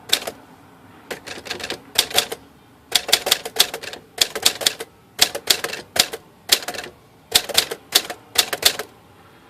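Smith Corona Silent manual typewriter being typed on: quick runs of type-bar strikes in short word-length bursts with brief pauses between them, a test typing to check the freshly repaired ribbon drive.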